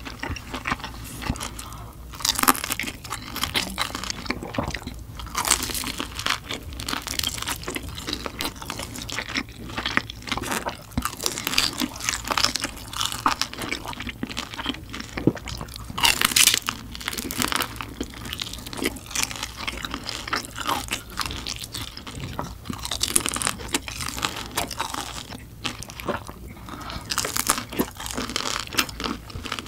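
Close-miked eating: irregular crisp crunches and wet chewing as pan-fried dumplings are bitten and chewed.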